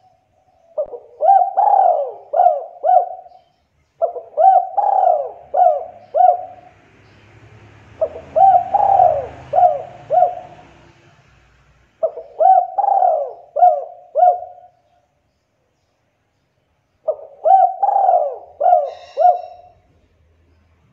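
Spotted dove (tekukur) cooing: five phrases of about five short coos each, every phrase lasting two to three seconds with pauses of one to three seconds between them.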